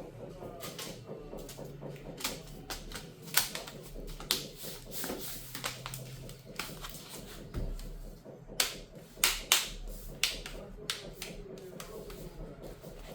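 Irregular sharp clicks and taps of small parts and a screwdriver on a laptop's bottom cover during reassembly, louder and closer together for two stretches in the middle.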